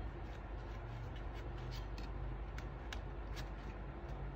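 Card-stock pages of a scrapbook base being flipped and pressed by hand, giving a few short clicks and taps of paper over a steady low hum.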